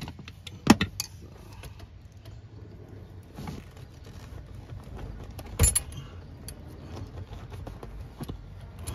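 Pliers working the metal wire hooks of a car seat's lumbar support assembly loose from the seat frame: scattered small metallic clicks and rattles, with sharp clicks about two-thirds of a second in and near six seconds.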